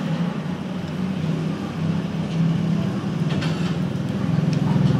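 An engine running with a steady low hum and a fast flutter, growing louder near the end, with a few faint clicks over it.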